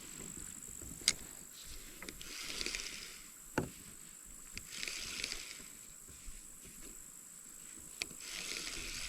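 Kayak paddle strokes in creek water: three splashy strokes about three seconds apart, with a few sharp knocks, as of the paddle touching the hull.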